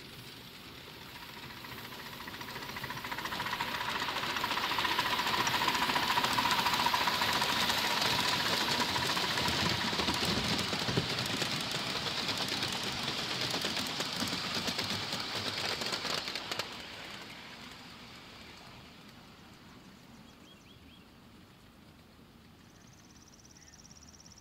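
1/8-scale live steam model of a Pennsylvania Railroad K4sa locomotive and its passenger cars passing on the track, a dense rattle and clatter of wheels and running gear that swells as the train draws near. It drops away sharply about two-thirds of the way through, then fades off into the distance.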